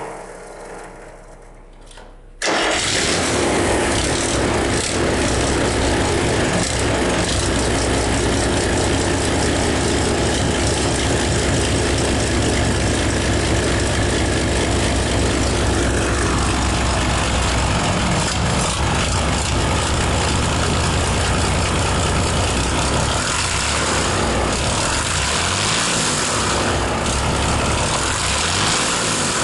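Freshly rebuilt Mercedes-Benz OM447 inline-six diesel engine starting for its first run: after a couple of quiet seconds it catches suddenly and then runs steadily.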